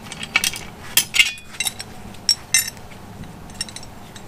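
Sharp metal clinks and clicks of a wrench and bolt hardware as a rusty brake stay bar is unbolted and lifted off a motorcycle swing arm, several in the first couple of seconds and then fainter.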